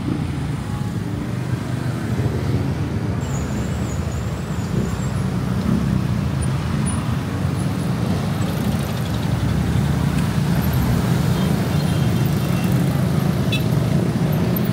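Steady low rumble of city road traffic, engines and tyres, getting gradually a little louder.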